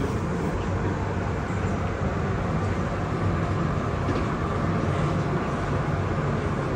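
Steady low rumbling background noise with a faint hum, even in level throughout, with no distinct events.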